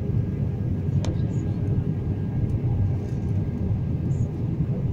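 Steady low rumble of an airliner cabin in flight, engine and airflow noise, with a single faint click about a second in.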